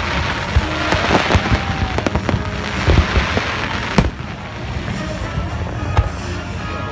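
Fireworks going off: a dense crackle of many small reports with scattered sharp bangs, the heaviest of them about four seconds in. The crackling thins out after that.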